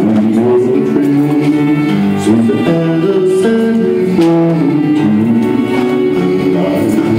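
Live acoustic trio of fiddle, upright bass and acoustic guitar playing a slow song, with long held notes over a steady bass line.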